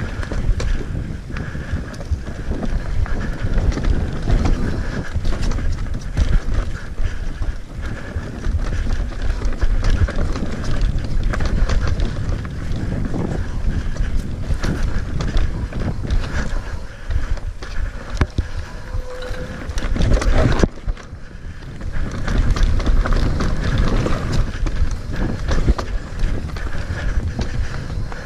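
Mountain bike riding fast down a dirt forest trail: wind buffeting the microphone over the rumble and crackle of the tyres on the dirt and the bike rattling. It goes briefly quieter about two-thirds of the way through.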